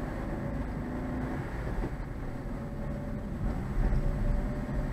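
Car driving, heard from inside the cabin: a steady low rumble of engine and road noise, swelling louder about four seconds in.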